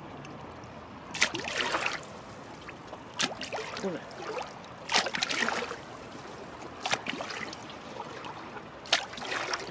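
Seawater splashing and sloshing against the wall in five surges, about one every two seconds.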